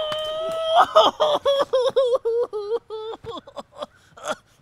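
A high-pitched human voice holds one long cry, then breaks into a run of short staccato 'ha' pulses, about four a second, that sink slightly in pitch and fade out, with a couple of short gasps near the end.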